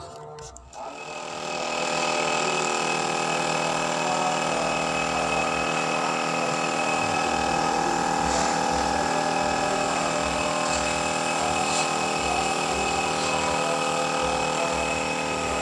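Compressed-air paint spray gun spraying, a steady hiss over the even run of the air compressor feeding it. It starts about a second and a half in.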